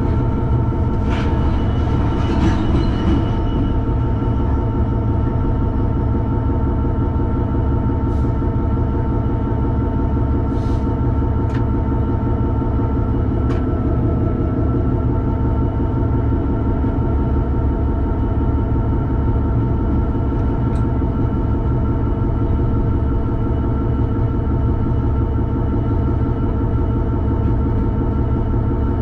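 Class 66 diesel-electric locomotive's two-stroke V12 diesel engine running steadily, heard from inside the cab as the train rolls along, with a few sharp clicks over the wheels and track.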